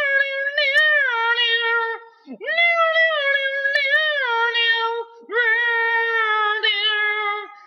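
A lone high voice singing long, held wordless notes in three phrases, each about two seconds long, with slight wavers and slides in pitch and no accompaniment: amateur bathroom-style singing.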